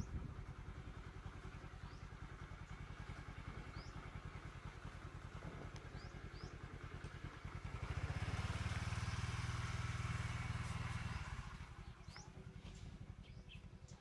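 A small engine running with a fast, even low pulsing, swelling louder for about three seconds in the middle and then fading back. A few short bird chirps over it.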